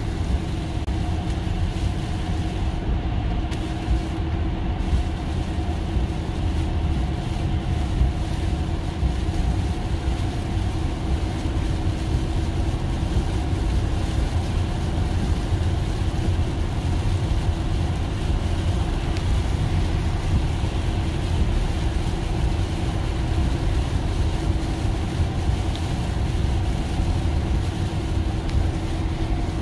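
Steady road noise inside a Tesla's cabin at highway speed in heavy rain: a low rumble of tyres on wet pavement with the hiss of rain and spray on the car, and a faint steady hum.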